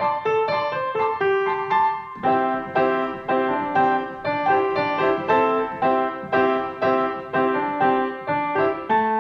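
Grand piano played solo: a flowing pattern of notes that grows fuller about two seconds in as lower notes join, pulsing about twice a second.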